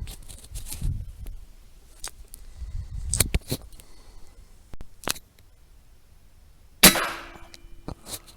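A single rifle shot about seven seconds in, sharp and loud with a short fading tail. Before it come scattered clicks, knocks and low handling rumbles from the gun being moved and aimed.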